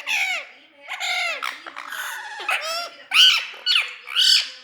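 A parrot giving a rapid string of short, shrill squawking calls, about seven of them, each arching up and then falling in pitch.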